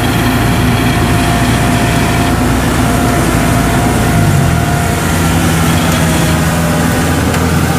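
Kubota DC70 combine harvester's diesel engine running loud and steady as the machine moves on its tracks, with a thin whine over the engine; the engine note changes about four seconds in.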